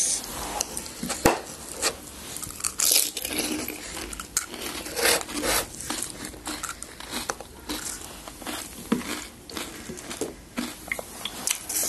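Crisp panipuri shells being bitten and crunched while eating, with irregular crackles and small clicks throughout.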